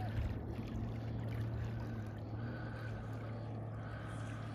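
A boat's motor running steadily, a low even hum, with water noise.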